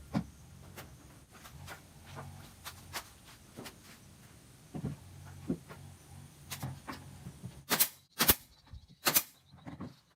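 Irregular light clicks and knocks over a faint low hum, with a few louder sharp knocks about eight to nine seconds in.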